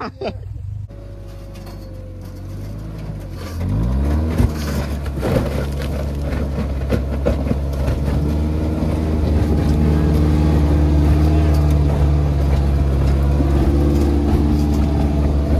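Rock crawler buggy's engine revving under load as it climbs a rock ledge: the note rises about four seconds in, with a couple of knocks, then holds high and steady.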